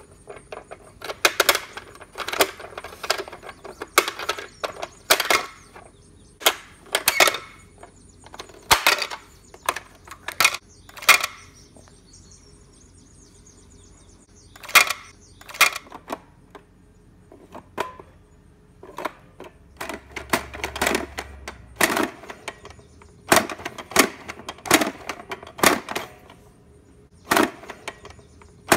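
Plastic pop-up activity toy worked by hand: its buttons, slider, dial and twist knob click and its spring-loaded lids snap open, in an irregular run of sharp plastic clicks and snaps.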